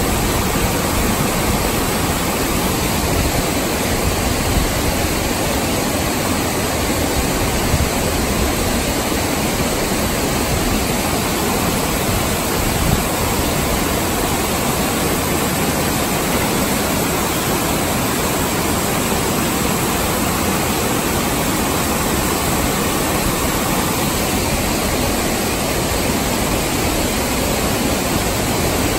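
Waterfall: white water pouring over rocks in a loud, steady, unbroken rush.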